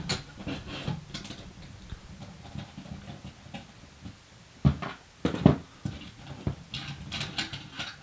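Small metal clicks and rattles of screws being undone and expansion-slot cover plates being taken out of a Silverstone RVZ03 PC case, with a few louder knocks a little past halfway.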